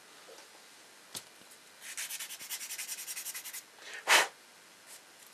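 A sanding stick rubbed quickly back and forth on a small plastic model-kit part, about eight or nine strokes a second for just under two seconds, to ease a part that is too tight a fit. A single click comes a second before it, and a short, loud rush of air near the end is the loudest sound.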